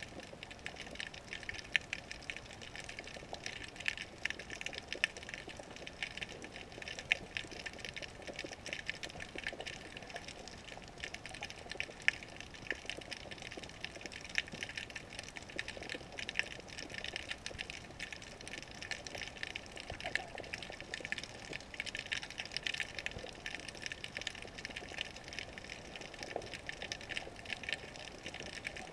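Underwater ambience picked up by a GoPro sealed in its waterproof housing and hanging in the water on a fishing leader: a steady, dense crackle of small irregular clicks over a faint hiss.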